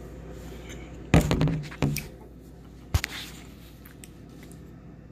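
Handling noise from a phone being picked up off a table: a loud cluster of knocks and bumps about a second in, then a single sharp click about three seconds in.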